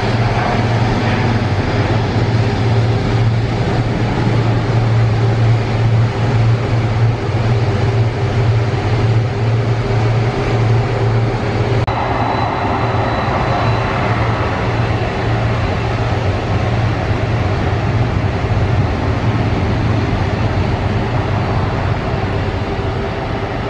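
Jet airliner engines running: a steady low drone under a broad roar. About twelve seconds in the sound changes to a fuller roar with a faint high whine.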